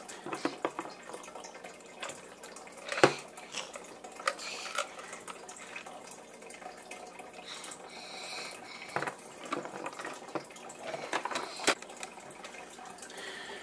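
Hard plastic dinosaur toy being handled on a plastic high-chair tray: irregular small clicks and taps, with a few sharper knocks about three, nine and twelve seconds in.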